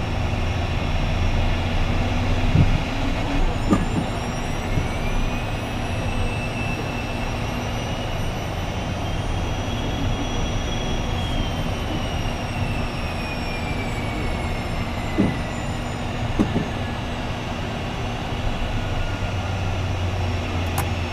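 Embraer Phenom 100 jet taxiing at low power, heard inside the cockpit: a steady engine rumble with a high whine that slowly rises and then falls away, and a few light clicks.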